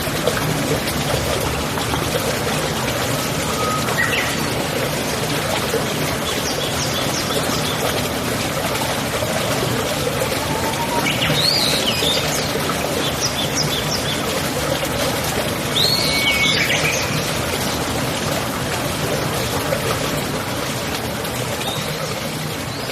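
Birds chirping here and there over a steady sound of running water.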